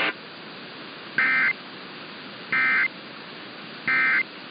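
Emergency Alert System end-of-message signal: three short, identical bursts of SAME digital data tones, a raspy two-tone warble about a third of a second each and about 1.35 s apart, over steady radio hiss. The bursts mark the end of the relayed severe thunderstorm warning.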